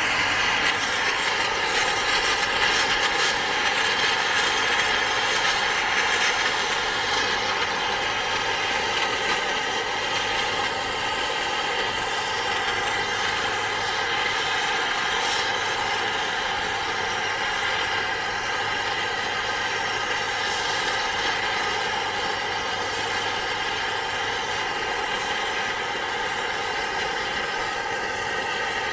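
A machine running steadily: an unchanging hum with several fixed tones, a little louder in the first few seconds.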